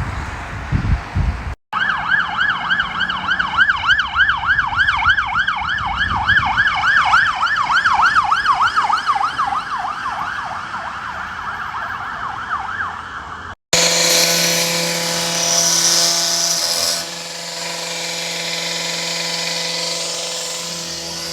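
A siren in fast yelp mode, its pitch sweeping up and down about three times a second, starts after about two seconds and cuts off abruptly before the end. It is followed by a steady machine drone with a hiss.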